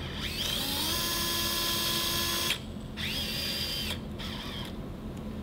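Surgical power drill overdrilling over a guide wire into bone. The motor whine rises in pitch over about a second, holds steady, and cuts off about halfway through. It runs again for about a second before stopping.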